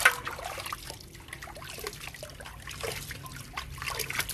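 Water trickling and splashing in irregular small splashes, with one sharper splash right at the start.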